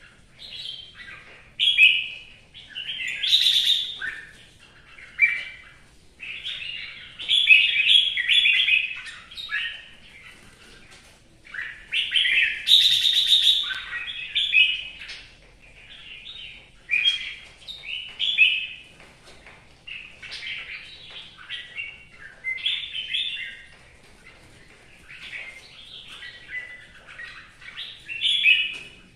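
Red-whiskered bulbul singing in a bamboo cage: bursts of bright, warbled song phrases, one every second or two, with short pauses between them.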